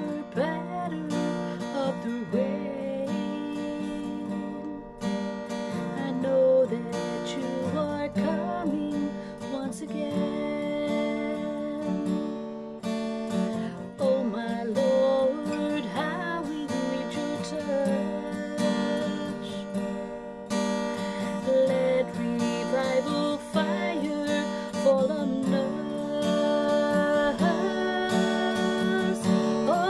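A woman singing a worship song while strumming chords on an acoustic guitar.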